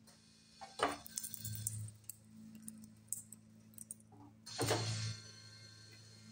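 Steel strip clinking and clanking against the steel dies of a homemade hydraulic press brake as it is handled. The louder clank comes about four and a half seconds in, over a steady low hum.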